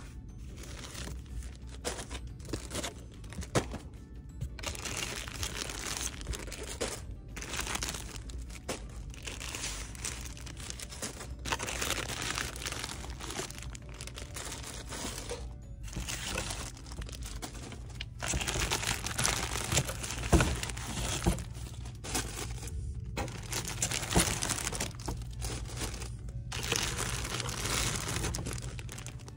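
Plastic-wrapped packs of swim diapers crinkling and rustling as they are handled and pulled off a cardboard display, with short knocks as packs land, the loudest about two-thirds of the way through. Music plays in the background.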